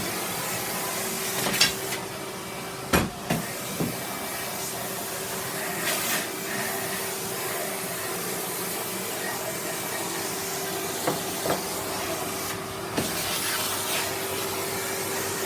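Numatic 'Henry' cylinder vacuum cleaner running steadily: an even rushing hiss over a constant motor hum, with a few brief clicks and knocks as it is worked over the floor.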